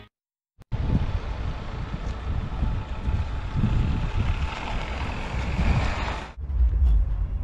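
Aircraft engine noise with wind rumbling on the microphone. The engine's hiss cuts off suddenly about six seconds in, leaving only low wind rumble.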